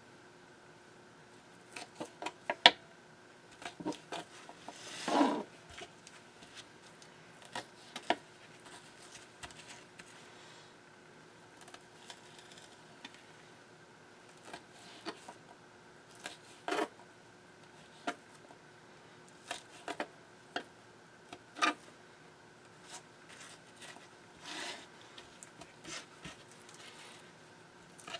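Knife cutting part-frozen squid on a plastic cutting board: irregular sharp taps of the blade on the board, with a longer scrape about five seconds in.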